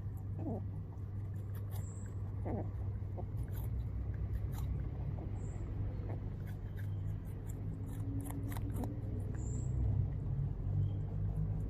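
Rabbit crunching on a piece of apple, a string of short crisp chewing clicks, with a couple of brief grunts in the first few seconds. A steady low hum runs underneath.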